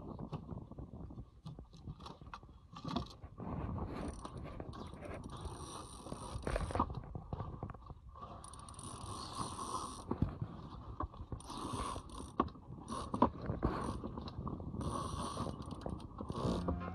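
Sailboat deck winch clicking as a line is hauled in around its drum, with rope rubbing and running through the boat's fittings. A hiss comes and goes several times over it.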